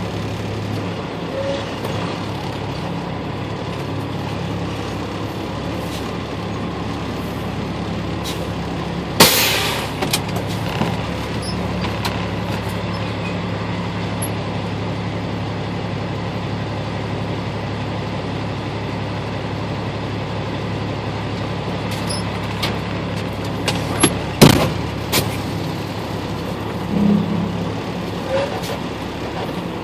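Vehicle engine running steadily while driving, heard from inside the cab as a low drone. A loud clunk about nine seconds in and a few sharp knocks around twenty-four seconds in stand out against it, like rattles from bumps in the road.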